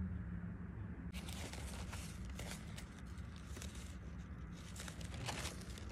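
Packaging or wrapping being crinkled and rustled by hand, starting about a second in and going on in irregular crackly bursts, over a low steady hum.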